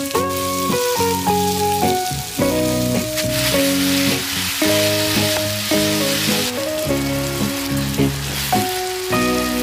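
Minced beef and onions sizzling as they fry in a nonstick pan while a plastic spatula breaks up and stirs the meat. The sizzle swells in the middle. A melodic background music track plays under it.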